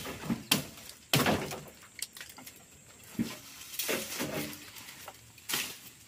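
Hand axe chopping at a tree branch: a series of sharp, irregularly spaced strikes of the blade into wood.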